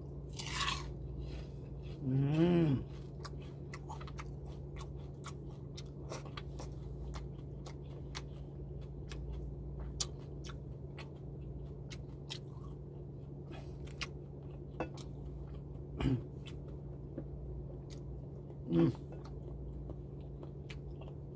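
Close-miked chewing of crispy fried fish and rice, with many short crisp crunches and wet mouth clicks. A few brief hummed 'mm' sounds come about two seconds in and twice more later on.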